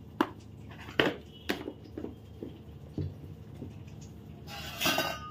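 Kitchen handling at a pan of water heating on a gas stove: a few sharp clicks and taps, then about four and a half seconds in a short scraping rush followed by a faint steady ringing tone, over a low steady hum.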